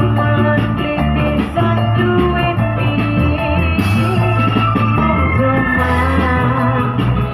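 Loud music with a steady beat and sustained bass notes.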